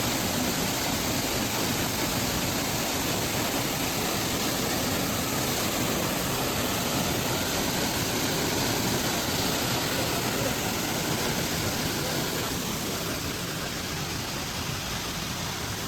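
Waterfall: steady rushing of falling water.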